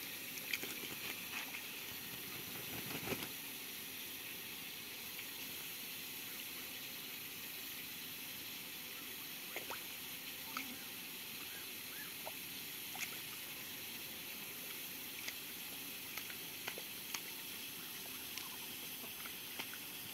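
A Muscovy duck bathing in a shallow puddle: scattered small splashes and drips of water as it dips its head and shakes, with the loudest splashing about three seconds in, over a steady background hiss.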